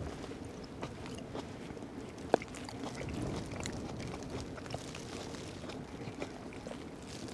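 Steady wind buffeting the tarp and the microphone, with scattered light clicks and taps and one sharper click about two seconds in.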